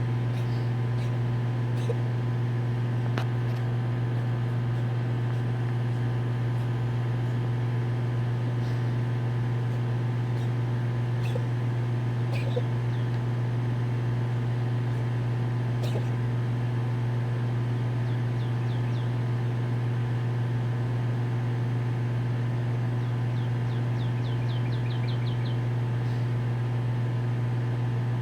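Steady low machine hum at an even level, with a few faint clicks. Twice, a short run of quick, high, falling chirps; the second, near the end, has about eight.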